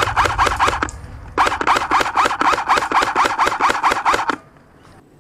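Airsoft rifle firing on full auto: a rapid burst that ends about a second in, then after a short pause a longer burst of about three seconds.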